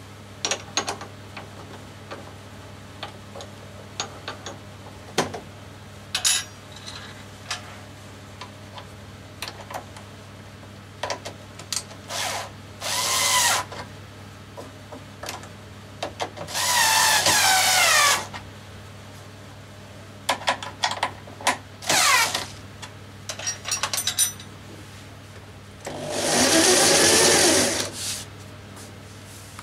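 Corded electric drill driving a homemade sanding-belt grinder, run in three short bursts, the longest near the end. Between the bursts come scattered clicks and knocks, over a steady low hum.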